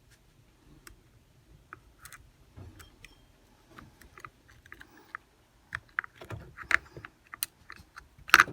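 Small parts of a Shimano Stradic 4000 FH spinning reel's bail arm clicking and tapping as they are handled and fitted by hand: light scattered clicks that grow busier in the second half, with one louder knock near the end.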